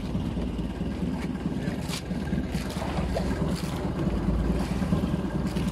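Outrigger fishing boat's engine running steadily, with wind blowing on the microphone.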